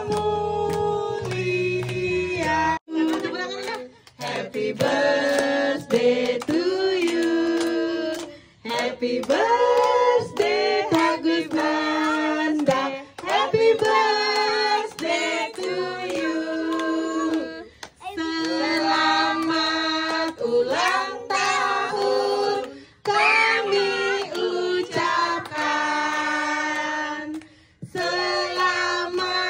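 Group singing of a birthday song, with a woman's voice through a microphone leading and children joining in, in phrases separated by short pauses, with hand clapping.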